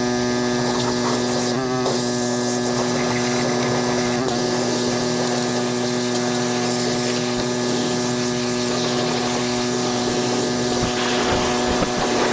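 Pressure washer running with a steady hum while its jet hisses against the aluminum hull and floor of a jon boat. The spray grows a little louder near the end.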